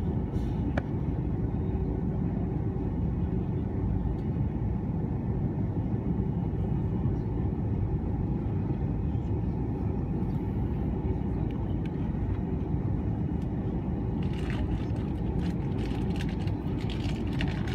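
Airliner cabin noise in an Airbus A330-300 with Rolls-Royce Trent 772B engines: a steady low rumble of engines and airflow during the descent. Some brief hissing sounds join in near the end.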